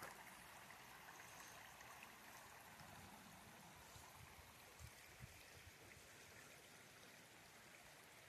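Faint, steady rush of a flowing brook, with a couple of soft low thumps about five seconds in.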